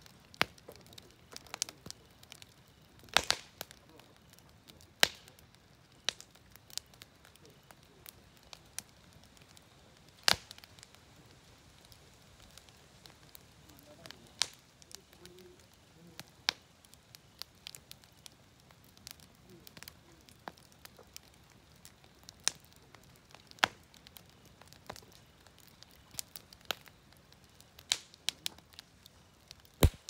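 Wood fire crackling in a fire pit: irregular sharp pops and snaps, some much louder than the rest, over a faint hiss.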